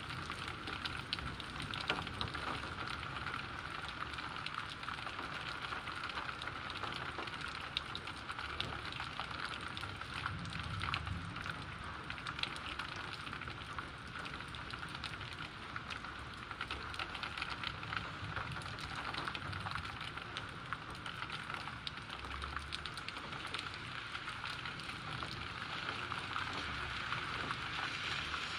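Heavy rain falling steadily: an even hiss with many fine ticks of drops hitting surfaces.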